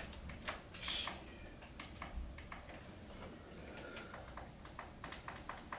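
Quiet room tone with scattered light clicks and ticks, and a short hissy rustle about a second in.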